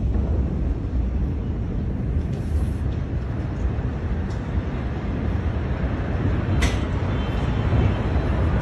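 Steady low rumbling noise on a handheld phone's microphone, with handling noise as the phone is swung about and a sharp click about six and a half seconds in.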